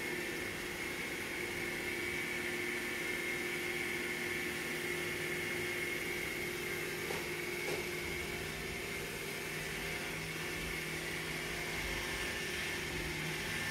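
Steady indoor room hum from a running household appliance, a low hum with a faint high whine, with a couple of faint clicks a little past halfway.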